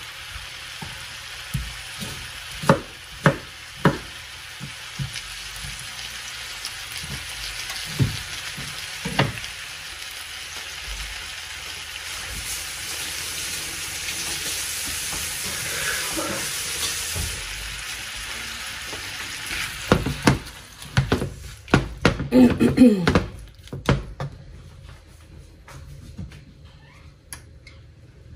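Cubes of chicken breast sizzling in oil in a nonstick frying pan, with a few sharp knocks of a knife on a wooden cutting board in the first several seconds. About twenty seconds in, a silicone spoon stirs the pieces with a short burst of scraping and clatter, after which the sizzle is much quieter.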